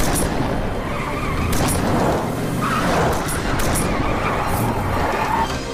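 SUVs speeding along a winding road, engines running hard with tyres squealing through the bend.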